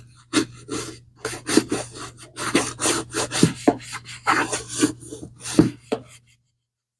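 Scrubbing and rubbing strokes over a vintage Swiss Army leather bag as it is cleaned, coming quickly and unevenly, about two or three a second, and stopping a little after six seconds in.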